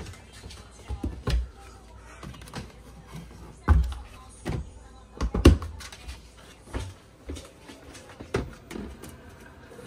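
Scattered knocks and clacks of a kitchen cupboard being opened and things inside handled while an oil bottle is fetched, with the loudest knocks near four and five and a half seconds in.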